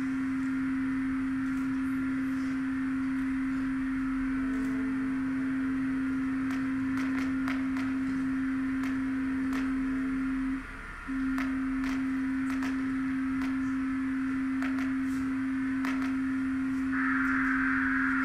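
A steady, pure electronic sine tone, low in pitch, held throughout and cutting out for about half a second just past the middle. It sits over a hissing band of higher noise that grows louder near the end, with faint scattered clicks.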